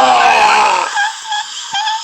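A person's voice imitating film sound effects: a long wailing tone that slowly falls in pitch, then a few short high-pitched vocal blips in the second half.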